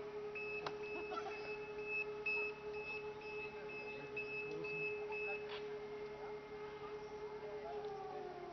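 E57 electromechanical siren sounding a steady tone, one blast of the fire-brigade alarm signal, then winding down with a falling pitch near the end. High, short beeps from a fire-brigade pager alert repeat through the first two-thirds and then stop.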